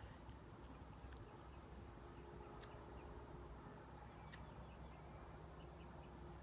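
Near silence: faint outdoor ambience with a low rumble, scattered faint high chirps and a few soft clicks.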